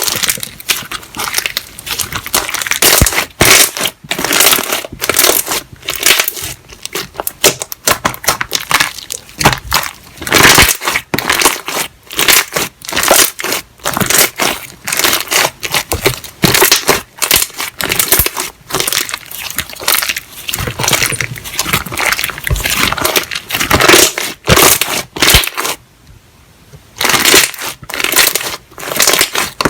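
Slime being squeezed and kneaded by hand, giving a dense, continuous run of crackles and small pops, with a brief pause about 26 seconds in.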